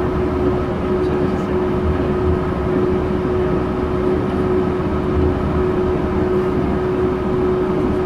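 Cabin noise of a Yurikamome rubber-tyred automated train running at steady speed on its concrete guideway: an even rolling rumble with a steady hum held at one pitch.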